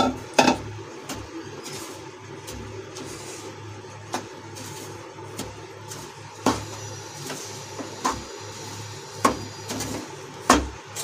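Wooden spatula stirring and scraping a thick, crumbly makhana-and-milk mixture in a nonstick kadhai, with a sharp knock of the spatula against the pan now and then.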